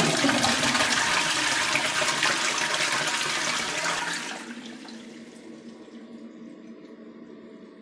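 Toilet flushing: a loud rush of water for about four seconds that then dies down to the quieter, steady hiss of the tank refilling.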